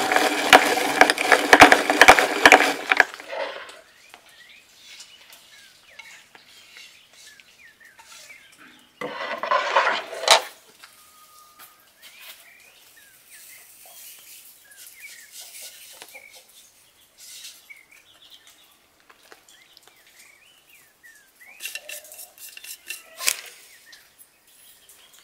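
Hand-cranked rotary drum grater with a stainless steel cutting drum, grinding walnuts in a fast, dense rattle of clicks for about the first three seconds, then stopping. Birds chirp faintly in the quiet that follows, with a short rustling burst about nine seconds in. Near the end a metal spoon clinks and scrapes in a plastic bowl as ground walnuts and sugar are stirred together.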